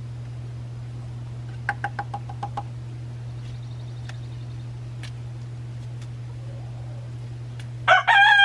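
Coop exhaust fan humming steadily. About two seconds in comes a quick run of short knocks, and near the end a rooster starts crowing loudly.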